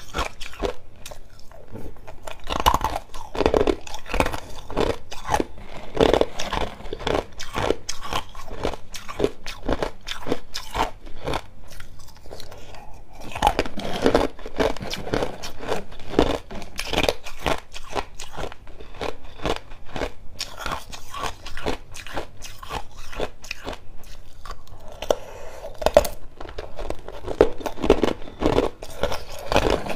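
Clear ice chunks being bitten and chewed, with rapid, dense crunching that comes in louder spells.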